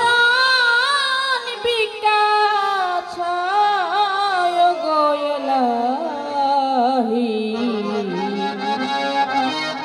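A woman singing a Bengali Baul folk song, holding long wavering notes, over instrumental accompaniment. Her melody slides steadily downward over the second half.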